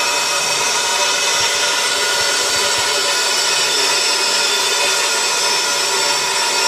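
Steam hissing from the Corris Railway No 10 narrow-gauge steam locomotive. It is a loud, even rush with several steady ringing tones in it, unbroken throughout.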